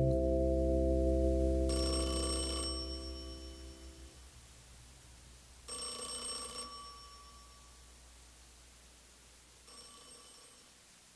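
The song's final chord fading out while a telephone rings three times, each ring about a second long and about four seconds apart, each fainter than the last.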